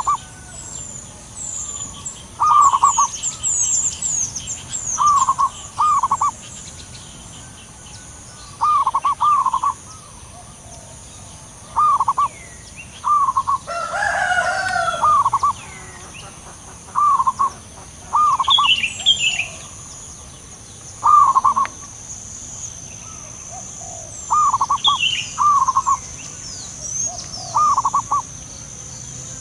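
Zebra doves cooing back and forth: short trilled coos in groups of two or three, repeated every few seconds, with thin high chirps above. About fourteen seconds in, a louder rough call lasts about a second and a half.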